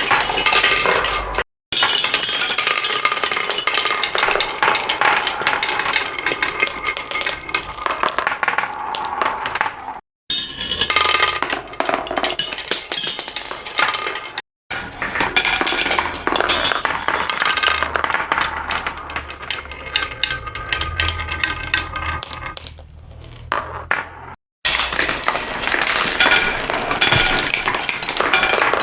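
Many marbles rolling and clattering through a marble run, a dense stream of clinks and clicks against each other and the track. The sound drops to dead silence for an instant four times.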